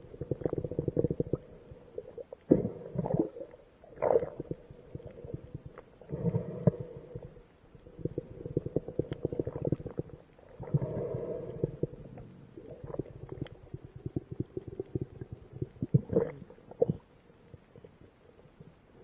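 Muffled underwater rumbling and crackling picked up through a submerged action camera's waterproof housing, coming in irregular surges with quieter gaps between them; water is moving around the camera as the diver swims.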